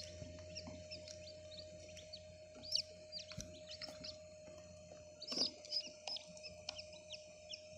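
Newly hatched chicks peeping: many short, high, falling chirps in quick succession, loudest about five and a half seconds in. Under them runs the steady hum of the incubator's small fan.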